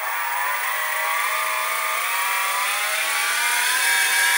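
Sieg SX2P mini mill's spindle motor speeding up as its speed knob is turned up gradually, a whine rising steadily in pitch and levelling off near the end, close to its top speed of about 2500 rpm.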